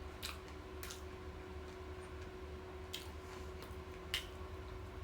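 Close-up eating sounds: wet chewing with four sharp mouth smacks, the loudest near the end, over a steady faint hum.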